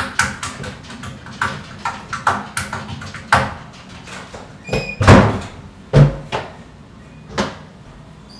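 Irregular knocks and thumps of people moving on a narrow staircase in a small, enclosed space: footfalls and bodies bumping against the walls and railing. The heaviest thumps come about five and six seconds in, with a brief squeak just before the first of them.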